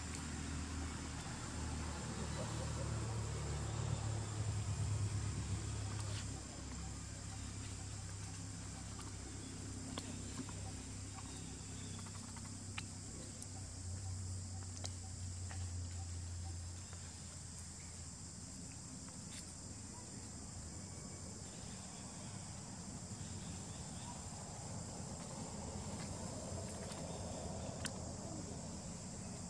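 Outdoor ambience: a steady, high-pitched insect drone over a low mechanical hum. The hum is louder in the first half and drops away a little past the middle. A few faint clicks are scattered through it.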